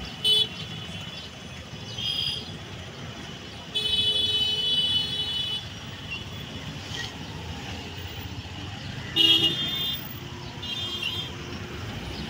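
Vehicle horns honking again and again in stalled traffic, over a steady low rumble of engines. One blast lasts nearly two seconds, a little under four seconds in, and the loudest comes about nine seconds in.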